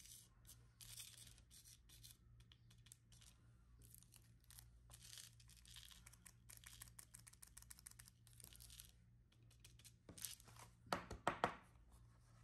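Faint scratchy rubbing and rustling of hand work on a sand-art sheet, in short uneven strokes, with a louder cluster of rough, tearing strokes near the end.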